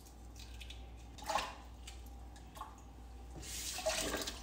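Kitchen faucet briefly running water into a stainless steel sink near the end, for rinsing a freshly peeled hard-boiled egg. Two small knocks come before it.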